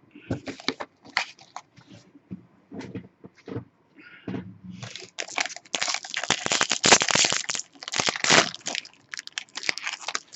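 A foil trading-card pack wrapper being handled, then crinkled and torn open. Scattered light crackles come first, then a dense run of crinkling and tearing from about halfway through that eases off near the end.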